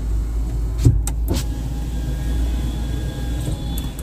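Power window motors of a new Hyundai Grand i10 Nios running as the glass travels, a steady hum with two switch clicks about a second in. They run without any unusual noise, and the inspection counts the windows as passed.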